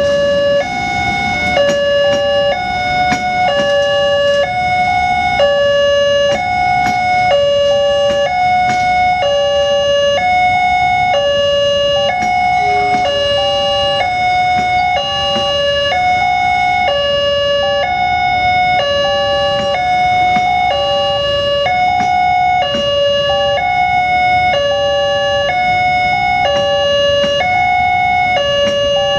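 Electronic warning siren of a railway level crossing, alternating steadily between a lower and a higher tone as a train approaches.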